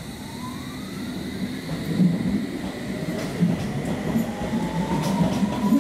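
London Underground S Stock train pulling away from the platform: its electric traction whine rises in pitch twice as it accelerates. Over it, a rhythmic clatter of wheels on the track gets louder as the train gathers speed.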